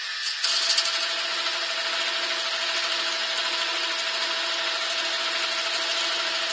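Knurling texturing tool pressed into a yew handle turning slowly on a woodturning lathe, pressing a textured grip into the wood. A steady scraping noise with a steady tone over it, starting with a few sharp contacts about half a second in.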